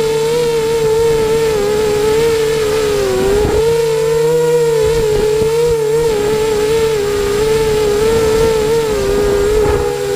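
Eachine 250 racing quadcopter's brushless motors and propellers whining steadily, heard close up from the onboard camera, the pitch wavering slightly with throttle. A low rumble of wind or air buffeting breaks in briefly about three and a half seconds in and again near the end.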